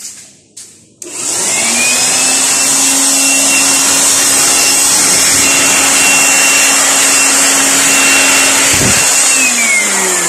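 Electric air blower switched on about a second in, spinning up to a steady whine with a rush of air, then winding down near the end, as it blows dust off the machine.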